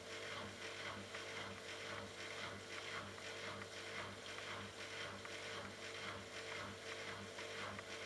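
Bosch Logixx WAS32461GB washing machine humming steadily with a fast rhythmic pulsing, about three beats a second, its drum at rest after the final spin.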